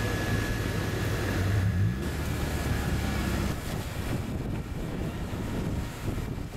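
A low, steady engine drone with wind on the microphone. The drone steps up in pitch about two seconds in and fades out a second and a half later, leaving a rushing hiss.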